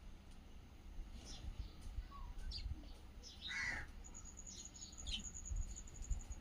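Several birds chirping in short, scattered calls, with one louder, harsher call about three and a half seconds in. A thin, high, steady whine joins from about four seconds in, over a low rumble.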